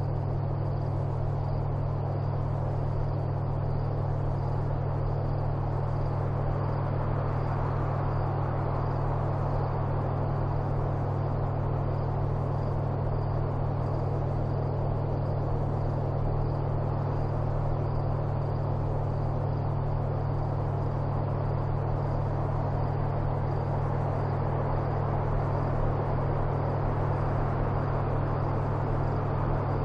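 Steady low hum and rumble with a hiss on top, unchanging throughout.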